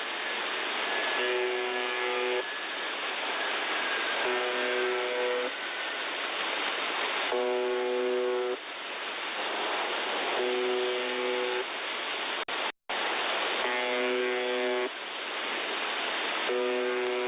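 The Buzzer (UVB-76) shortwave signal on 4625 kHz, received in upper sideband: a harsh buzz tone about a second long, repeating roughly every three seconds over steady radio static. The signal cuts out briefly about thirteen seconds in.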